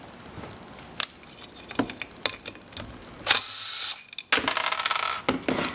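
Small metal clicks and clatter of hand tools and bolt hardware being worked on an engine's coil mount while the ground strap is fastened, with one louder rasping burst a little after three seconds in.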